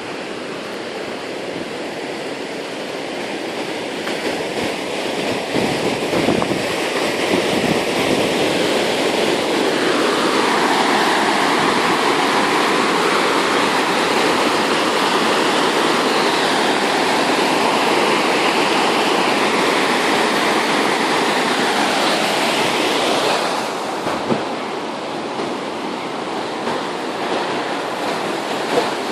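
Rushing river water, a loud steady noise that swells louder for about fourteen seconds in the middle and then drops back, with wind on the microphone.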